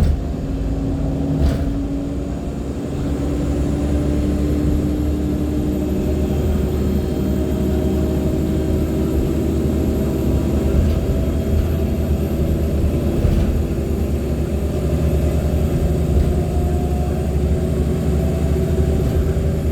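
Cabin sound of a 2014 NOVA Bus LFS articulated hybrid bus under way, its Cummins ISL9 inline-six diesel pulling steadily with a low rumble, its pitch rising slowly. A thin high whistle comes in a few seconds in and rises slightly, fading near the end.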